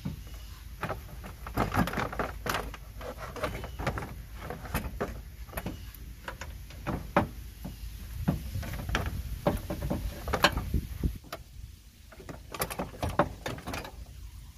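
Irregular knocks, clunks and rattles of a replacement radiator being lowered and shifted into its mounts in a pickup's front end, with a steady low hum behind. The clatter is densest about two, nine to eleven and thirteen seconds in.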